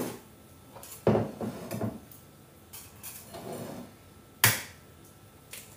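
Kitchen handling sounds: a ceramic mixing bowl set down on a wooden countertop with a thud about a second in, followed by a few light knocks and a single sharp click about four seconds later.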